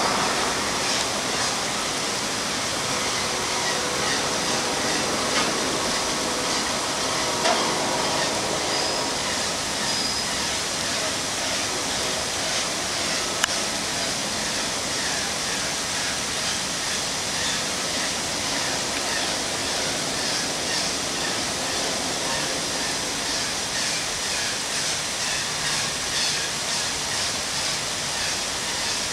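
A steady, unbroken rushing noise, with faint voices in the first several seconds.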